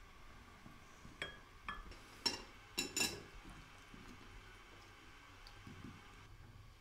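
Tea glasses and dishes clinking on a set table: about five light clinks with short ringing between one and three seconds in.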